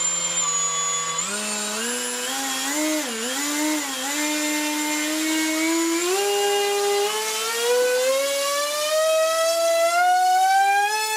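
Emax RS2306 2750kV brushless motor spinning a 6x4 two-blade propeller under bench throttle, giving a whine with many overtones. Its pitch holds, steps up and wobbles over the first few seconds, then climbs steadily as the throttle is raised.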